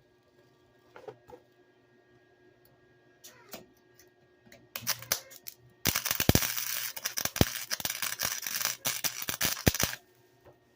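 Welding arc on a car door panel crackling and sputtering steadily for about four seconds, then cut off suddenly. A few scattered light clicks and taps come before it.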